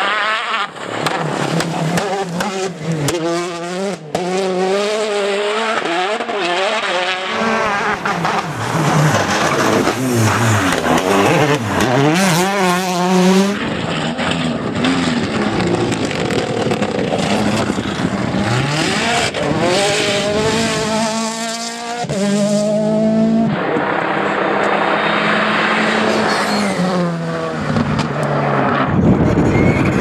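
Turbocharged four-cylinder rally cars, among them a Peugeot 208 T16 and a Mini, driven flat out in several short passes. The engines rev hard, and their pitch climbs and drops again and again through gear changes and lifts.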